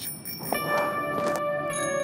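Soundtrack music: a shimmering bell-like chime, with sustained ringing tones swelling in about half a second in.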